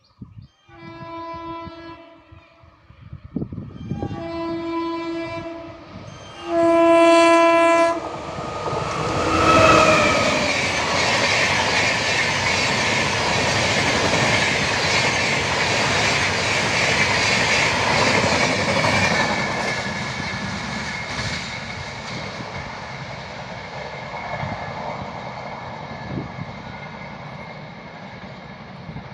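Three blasts of an Indian Railways electric locomotive's horn, the third the loudest. Then an express train passes at speed, its wheel and rail noise loud at first and slowly dying away.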